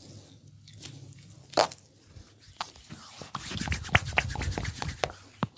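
Massage hands working on skin, rubbing and pressing: one sharp crack about one and a half seconds in, then a run of rapid crackling clicks over a low rub for a second and a half, and a last click near the end.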